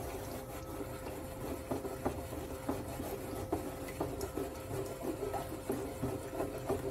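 Small stainless steel saucepan of sugar and water being swirled on the countertop without stirring to work the water into the sugar: its base rubs and scrapes against the surface in irregular strokes. A faint steady hum runs underneath.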